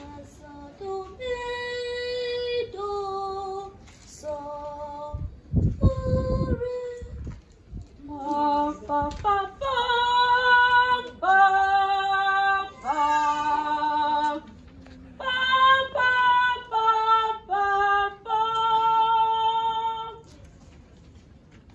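A choir of children and young women singing unaccompanied, in held notes and short phrases; it stops a second or two before the end. A brief low rumble comes about six seconds in.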